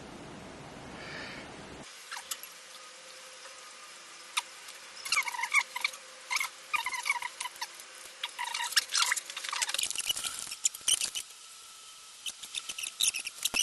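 Handling noise: a run of small clicks and short squeaks, busiest from about five to ten seconds in.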